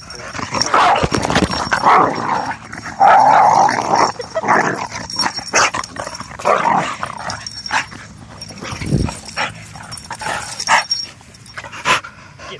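Dogs growling in a rough scuffle, in irregular bursts that die down near the end.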